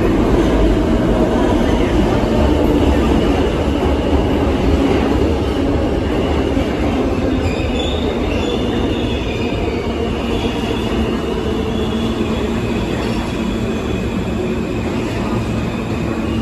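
New York City subway train running through the station on the middle express track, with a steady rumble of wheels on rail. High-pitched wheel squeal joins about halfway through and fades near the end.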